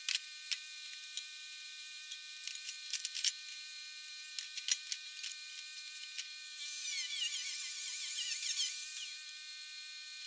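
Scrap sheet-steel pieces being handled: scattered light clinks and taps of metal, then from about two-thirds of the way in a couple of seconds of metal scraping against metal.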